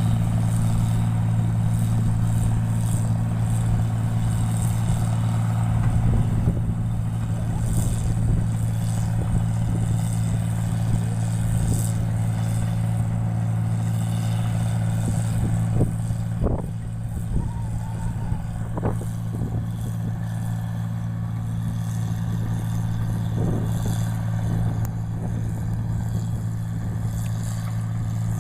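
Engine-driven rice paddy machine running steadily with a constant low hum, with a few short knocks a little past halfway.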